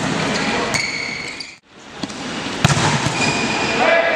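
Volleyball rally in a gym hall: sharp hits of hands on the ball, one at the start and another a little under three seconds in, ringing in the hall, with short high squeaks in between. The sound drops out briefly just past the middle.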